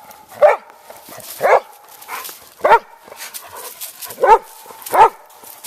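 A dog barking five times at uneven intervals of about a second.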